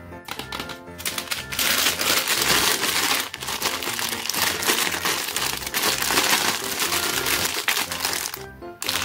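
Plastic Maltesers packet crinkling loudly as it is squeezed and turned in the hands, starting about a second in and stopping shortly before the end, over background music.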